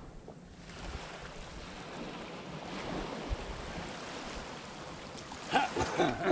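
Wind gusting over the microphone with the sea washing on the shore, growing louder about a second in. Near the end a short, louder burst of sound cuts in.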